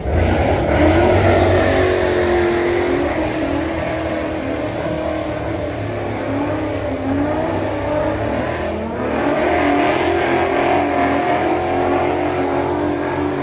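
Car engine revving hard at high rpm, its pitch rising and falling again and again over a low steady rumble. There is a short lull about nine seconds in before it picks up again.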